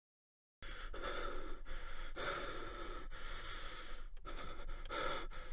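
A person breathing hard and fast through the mouth, gasping for breath with a quick string of loud breaths in and out, about one a second. It starts abruptly about half a second in.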